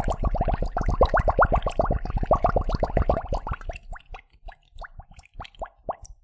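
A sound effect of bubbles plopping in water: a rapid stream of short blips, each rising in pitch, that thins out to scattered single plops about halfway through.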